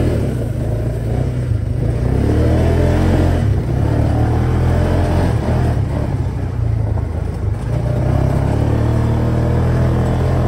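Dune buggy engine running under way, a loud steady low drone with rumble and rattle.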